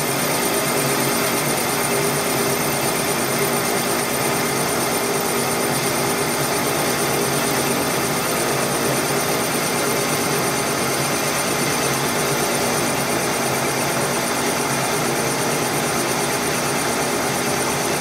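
Metal lathe running steadily as a carbide insert turns down a steel shaft, a constant machine hum with a faint whine above it.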